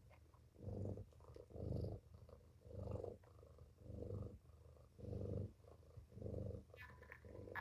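Mother cat purring softly as she lies nursing her newborn kittens, the purr swelling and fading with each breath about once a second.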